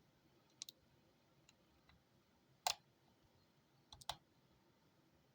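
Lock pick and tension wrench working the pin stack of an Abus Titalium 64Ti/35 padlock: a few sharp, scattered clicks, a quick double one under a second in, a louder one about halfway, and a pair near the end, with near silence between.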